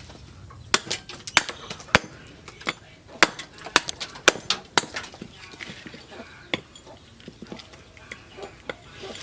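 A rapid, irregular series of sharp knocks and clinks from a hand tool striking, more than a dozen, thickest in the first half.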